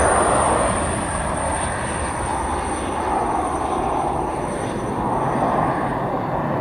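Twin Pratt & Whitney JT15D turbofans of a Cessna 551 Citation at take-off power as the jet lifts off and climbs away: a steady jet roar with a high whine that drops a little in pitch near the start.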